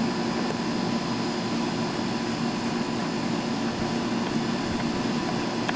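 Steady mechanical hum with a few faint steady tones in it, unchanging throughout.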